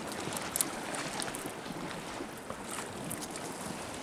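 Sea water washing against the rocks below, with light wind on the microphone and a few faint clicks over it.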